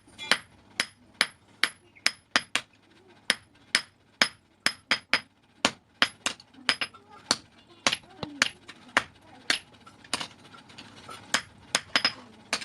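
Hand hammer striking steel on an anvil during blacksmith forging: a quick, uneven run of sharp metallic blows, about two to three a second, each with a brief high ring.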